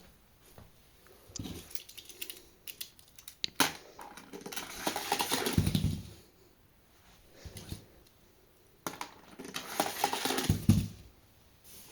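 Small toy cars clattering and rolling along a hard toy track, twice, each run ending in a low thud.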